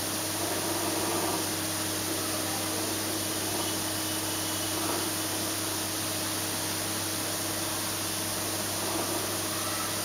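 Steady, even hiss with a low hum, level throughout; no distinct splashes or bird calls stand out.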